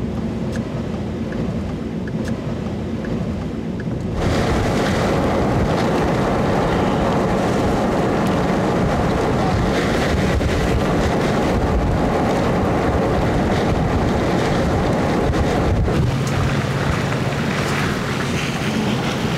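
A car's road noise at first. About four seconds in it gives way to loud, steady wind rushing over the microphone. Near the end a low steady engine hum from the moving car comes back in.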